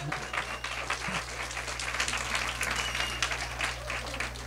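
Audience applauding, many hands clapping together in a steady patter that eases off slightly near the end.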